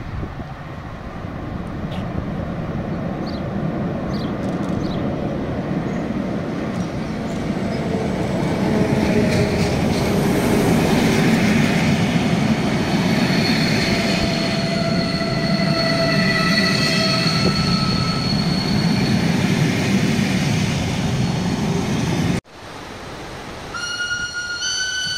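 Historic train with a BFe 4/4 railcar and old coaches rolling past close by, its wheels rumbling and rattling louder as the coaches pass, with steady high wheel squeal in the middle. After a sudden break near the end, a horn starts sounding.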